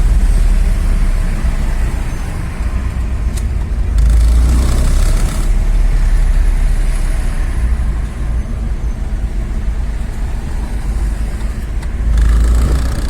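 Steady road and engine rumble heard from inside a moving van, with a deep low rumble that swells louder twice, about four seconds in and near the end.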